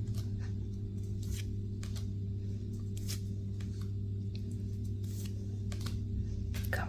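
Handling of a Pokémon booster pack and its cards: irregular short crackles and rustles of the foil wrapper and card stock, over a steady low hum.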